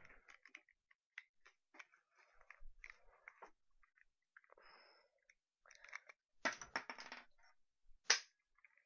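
Small hard parts being handled and fitted together by hand: scattered light clicks and rustling, a short clatter of parts near the end, then one sharp click.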